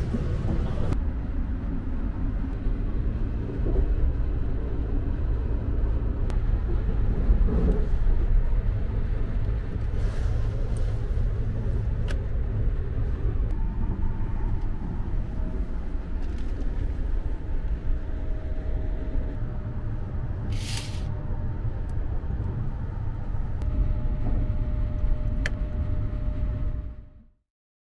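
Steady low rumble of the Sunrise Express, a 285-series electric sleeper train, running, heard inside the carriage. A brief hiss comes about two-thirds of the way through, and the rumble fades out quickly near the end.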